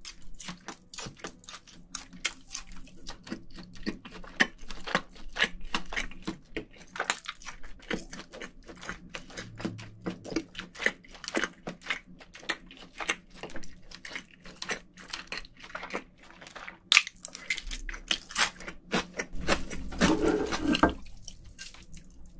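Close-miked chewing of cold buckwheat noodles and marinated pork rib meat: a steady run of wet mouth clicks and small crunches, with a brief louder noise about twenty seconds in.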